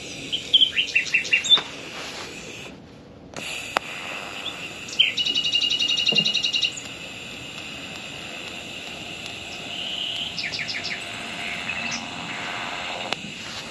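Songbirds singing: a quick run of short chirps, then a rapid trill about five seconds in and more chirps near the ten-second mark, over a steady background hiss.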